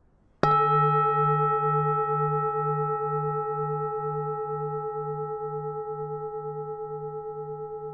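Buddhist temple bell struck once about half a second in, then ringing on in several steady tones that slowly fade, the low hum wavering about twice a second.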